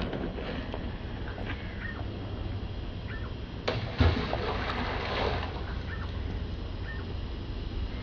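Steady rush of a flooded creek's water, with a sharp knock about four seconds in followed by a brief louder splash of water. Faint short chirps come and go.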